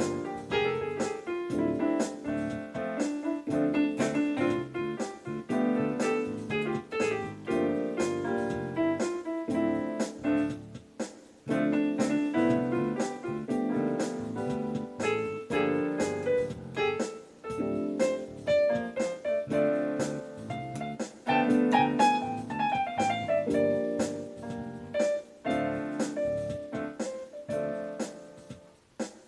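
Piano voice of a Casio LK-218 lighted-key keyboard, played by hand in chords and melody over a backing track with a steady percussive beat. The music dies away near the end.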